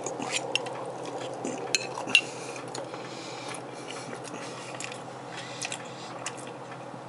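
Metal fork clinking and scraping on a plate as food is cut and picked up, a scatter of sharp clicks with the loudest about two seconds in.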